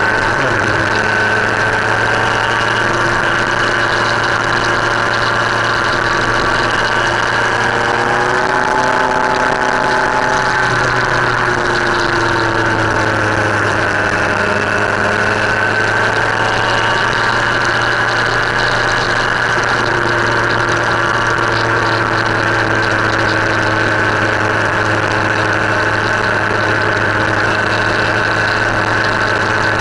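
Motorcycle engine running at road speed under a steady rush of wind and road noise. Its pitch sinks for a few seconds in the middle and then climbs back as the bike slows and picks up again.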